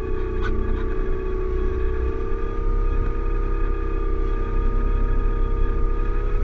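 Electric motor and propeller of an E-flite Apprentice RC trainer plane whining steadily, heard from a camera riding on the plane, its pitch edging up slightly about two seconds in. Wind rumbles over the microphone underneath.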